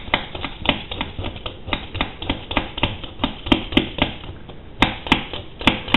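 A raw potato being peeled by hand: quick, repeated short scraping strokes, about three to four a second, with a brief pause near the end.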